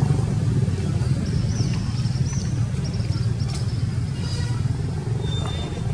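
A steady low motor rumble, like a vehicle engine running nearby. A few thin, high chirps come in about a second in and stop a couple of seconds later.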